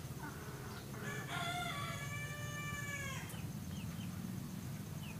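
A rooster crowing once, a call of about two seconds starting just over a second in, over a steady low hum. A few short chirps follow near the end.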